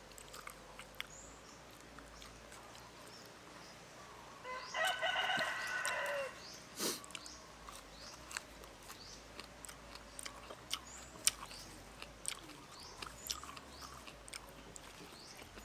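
A rooster crows once, about four and a half seconds in: a call under two seconds long that drops in pitch at the end. Around it come faint small clicks and crunches of chewing and handling fresh leaves.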